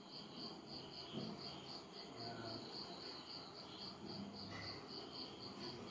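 A cricket chirping faintly in an even, steady pulse, about four chirps a second, with faint chewing as someone eats.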